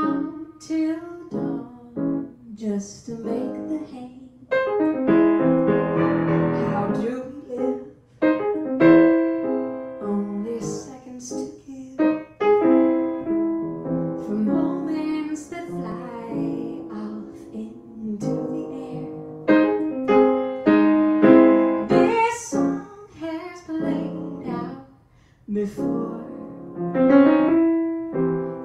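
A woman singing while accompanying herself on a grand piano, playing chords in phrases with brief pauses about 8 and 25 seconds in.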